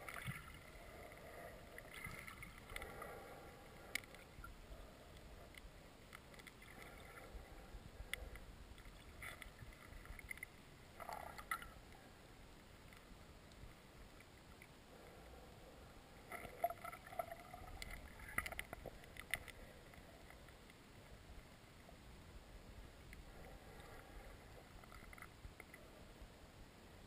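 Faint, muffled underwater water noise picked up by a submerged camera, with scattered light clicks and knocks, a cluster of them a little past the middle.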